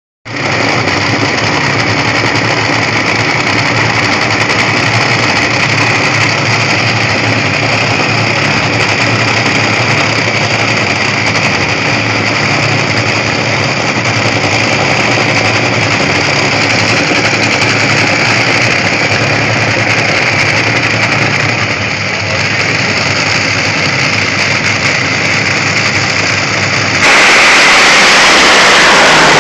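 Drag racing cars' engines running loud and steady at the starting line. About 27 seconds in, the sound jumps suddenly louder and fuller as the cars go to full throttle off the line.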